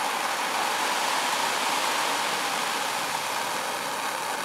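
Handheld gas torch running with a steady hiss of flame, heating a ring terminal as solder is melted into it.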